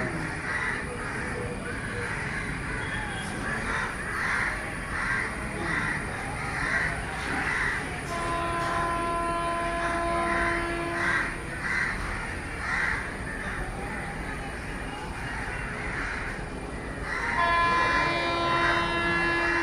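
Crows cawing over and over through the first half. An Indian Railways train's locomotive horn sounds a steady blast of about three seconds roughly eight seconds in, then sounds again, louder and longer, near the end.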